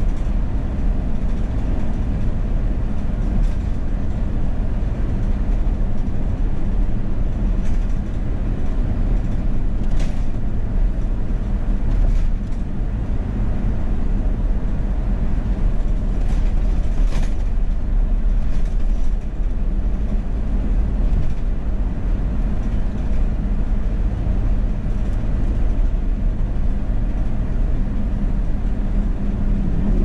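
Steady low road and engine rumble of a moving car heard inside its cabin, with a few faint clicks here and there.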